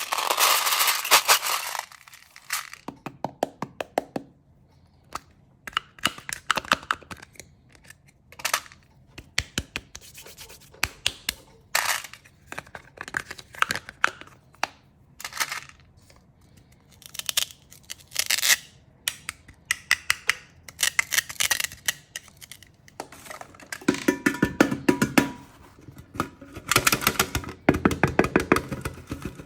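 Candy and its packaging being handled for ASMR: a string of irregular clicks, taps and small rattles. There are denser rattling and crinkling stretches at the very start and again over the last few seconds.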